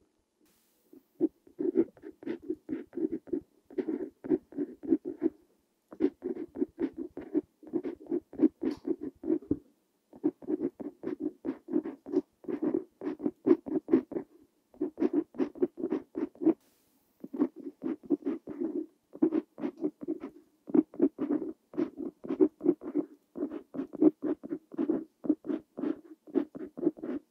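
Parker Jotter fountain pen nib scratching across paper in handwriting. It comes in runs of quick strokes a second or a few seconds long, broken by brief pauses between words.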